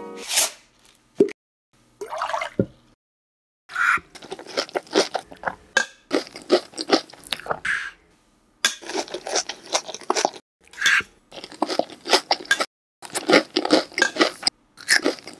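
Crunching and chewing of crunchy ring cereal, close up, in repeated bouts with short pauses between them, starting about four seconds in after a few brief sounds.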